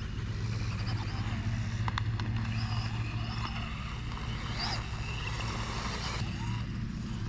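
Electric motor of a Losi Promoto-MX RC motorcycle whining faintly at a distance, rising and falling in pitch as it is throttled around a dirt track, over a steady low hum.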